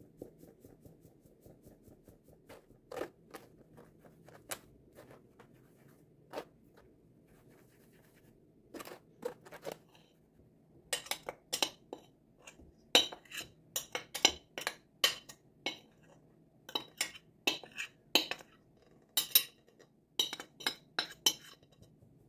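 Metal mesh sieve of chickpea flour tapped over a glass bowl, sharp taps and light metallic clinks as the flour is shaken through. A few scattered knocks at first, then quick taps, several a second, from about eleven seconds in until near the end, over a faint steady hum.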